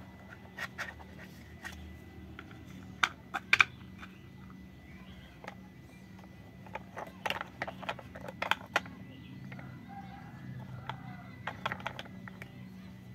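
Hard plastic toy-train parts clicking and knocking against each other as they are handled and pulled apart, in scattered clusters of sharp clicks: about three seconds in, again around seven to nine seconds, and near the end. A low steady hum runs underneath.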